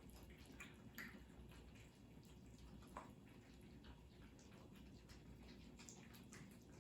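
Cats eating: faint, irregular small clicks and wet smacks of chewing and licking, a few a second, over a low background hum.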